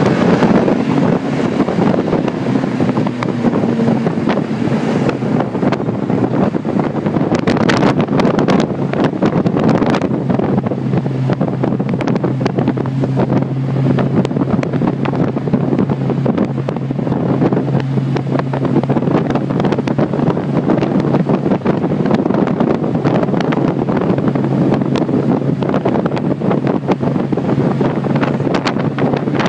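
Big-block 454 V8 with Hooker headers and two-chamber Flowmaster mufflers, heard from inside the cabin while driving; its note varies at first, then settles into a steady drone about eleven seconds in. Wind noise on the microphone runs over it.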